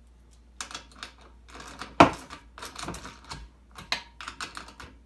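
Bolts on a table saw's mobile base being tightened with a hand wrench: an irregular run of metal clicks and rattles, with one loud clank about two seconds in.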